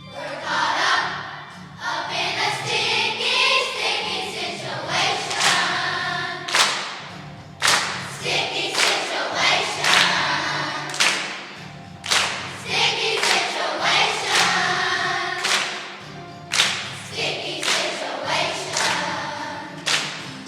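Elementary-school children's choir singing a song over musical accompaniment, punctuated by sharp percussive beats.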